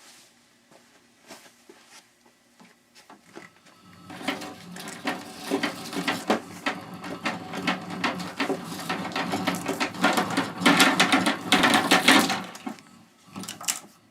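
Copper wire being pulled through a wire stripper, a fast clicking rattle as the wire feeds through the blade and is slit. It starts about four seconds in and stops shortly before the end, with one more short burst after it.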